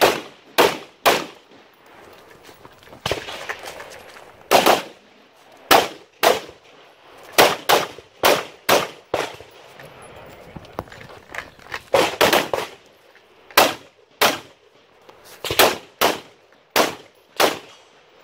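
AR-15-style carbine being fired rapidly: about twenty sharp shots, many in quick pairs and short strings, with brief pauses between strings.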